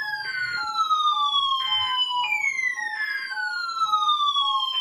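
Electronic siren-like alert sound: a tone sliding down in pitch that starts over about halfway through, over a short beep repeating about twice a second.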